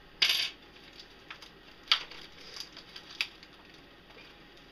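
Handling of flat-pack desk hardware: a brief rustle about a quarter second in, then sharp light clicks near two and three seconds as a small metal hex key is handled and set down on the desk panel.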